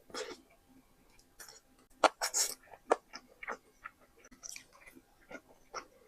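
Close-miked eating sounds: irregular chewing with wet mouth clicks and smacks, and a short louder slurp or crunch about two seconds in.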